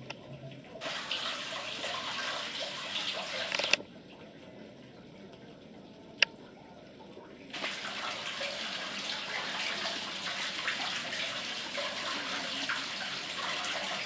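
Water trickling and splashing down over rocks into a stone cistern, heard in two stretches: from about a second in until nearly four seconds, then again from about seven and a half seconds on. In the quieter gap between them there is a single sharp click.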